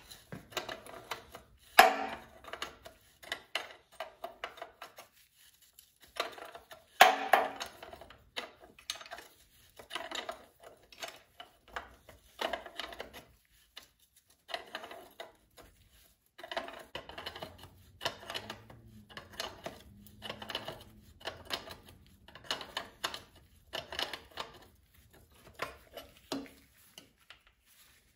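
Steel wrenches clinking and clicking against each other and against a fuel line fitting as the line nut is loosened at the fuel pump. The clicks come irregularly, with two sharper clanks about two and seven seconds in.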